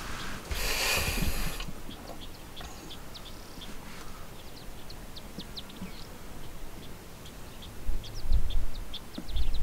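Small birds chirping, many short quick calls scattered throughout, over a low rumble. A brief loud hiss comes about half a second in, and the low rumble swells near the end.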